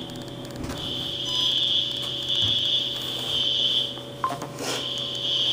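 Building fire alarm sounding a high steady tone that comes in just under a second in, breaks off for about a second near four seconds in, then resumes.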